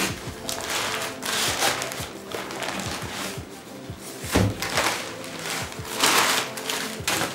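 Newspaper wrapping rustling and crinkling as a cardboard lens box is pulled free and handled, with a single thud about four seconds in; background music plays throughout.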